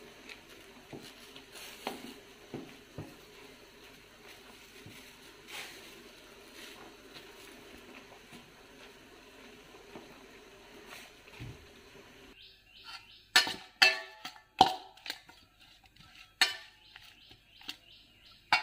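Sour tengesi greens simmering in a steel pot, with faint bubbling and light clicks from a spatula stirring them. About twelve seconds in, a steel spatula clanks sharply several times against a steel bowl of fried small fish.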